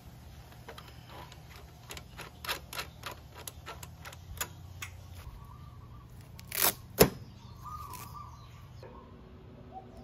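Brake adjuster nut on a Vespa LX rear brake clicking round under the fingers in a run of small ticks. Then a velcro strap is ripped off the brake lever and grip, and the freed lever springs back with one sharp click, the loudest sound here.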